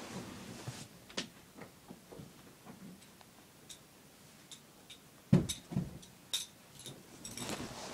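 Scattered light knocks and clicks of someone moving about and handling things, with one loud thump a little over five seconds in followed by a few sharper clicks, and some rustling near the end.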